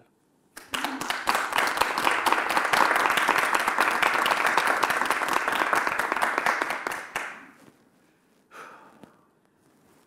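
Applause: hands clapping fast and densely, starting about half a second in and dying away at about seven seconds.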